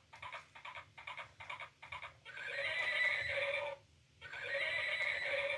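Electronic toy pony's sound chip: rapid clicking for about two seconds, then two recorded horse neighs, each over a second long, with a short break between them.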